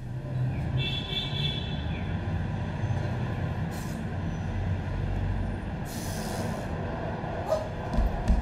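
Steady low rumble of passing traffic or a train, played as a stage sound effect. A brief hiss comes about six seconds in, and a couple of sharp thumps near the end.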